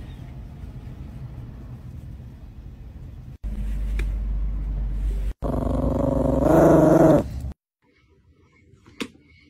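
A small dog growling, a loud wavering snarl of about two seconds partway through, at a toy grabber hand poked at it. Low rumbling handling noise comes before it, and faint clicks follow.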